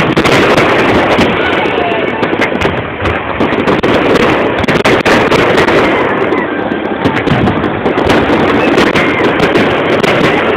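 Fireworks going off in a rapid, continuous barrage of bangs, one burst running into the next.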